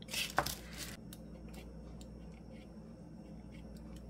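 Hands handling a thin paper napkin against a small wooden birdhouse: a brief paper rustle in the first second, then faint light taps and scrapes.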